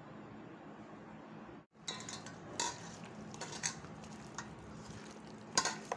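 Raw chicken pieces being mixed by hand with spice powders in a stainless steel bowl: irregular wet squelches, scrapes and sharp knocks of the pieces against the metal bowl, the loudest knock about five and a half seconds in. It is preceded by a second and a half of faint steady hiss.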